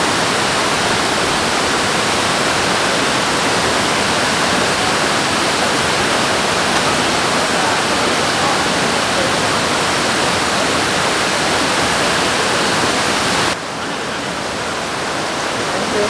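Tall waterfall plunging into its pool: a steady, loud rush of falling water. Near the end the rush drops suddenly to a quieter level.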